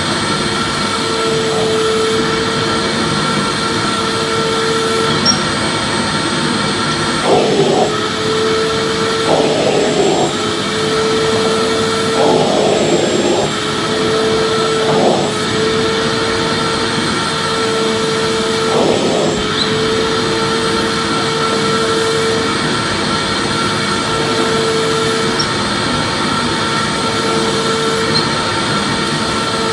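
Vacuum cleaner running steadily: a loud, even rush of air with a humming tone that drops out briefly every couple of seconds, and a few short surges.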